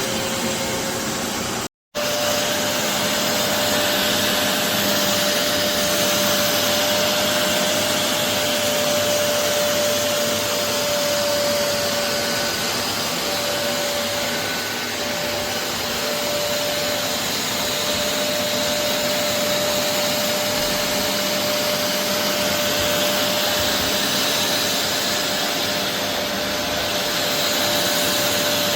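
BISSELL Revolution HydroSteam Pet carpet cleaner running, its suction motor a steady whine with one held tone. The sound cuts out for an instant about two seconds in.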